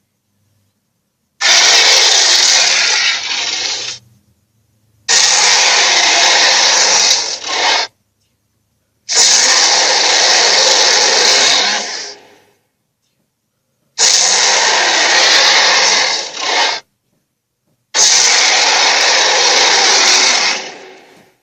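Tigorilla creature sound effect: five harsh, noisy roars of about three seconds each, separated by a second or more of silence.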